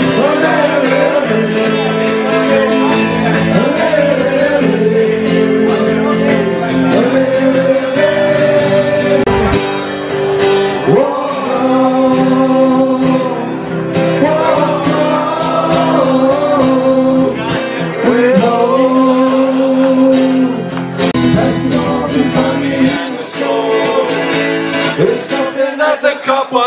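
Acoustic guitars played live with a man singing a melody over them.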